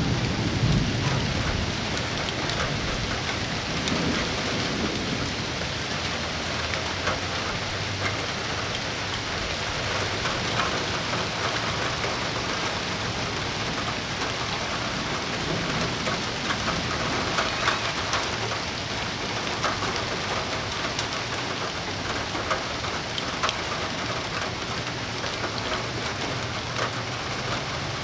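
Thunderstorm rain falling steadily, with scattered drips and splashes. A roll of thunder fades out in the first second or two.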